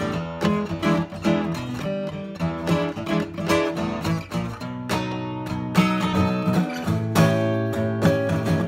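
Martin MMV steel-string acoustic guitar played with a pick: a blues-style run of picked notes and strummed chords, with chords left ringing for a moment a few times.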